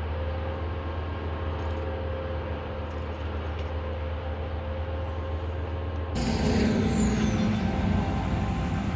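A large engine-driven machine running steadily with a low drone. About six seconds in, the sound turns suddenly louder and harsher.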